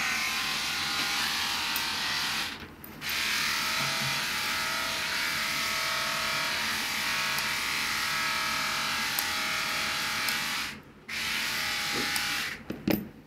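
Small electric pet trimmer buzzing steadily while it trims the fur around a cat's paw pads. It cuts out briefly about a third of the way in and again near the end, then stops with a few handling clicks.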